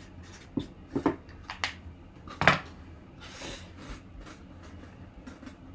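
A few sharp knocks and clicks of hard objects being handled, the loudest about two and a half seconds in, followed by a short breathy hiss.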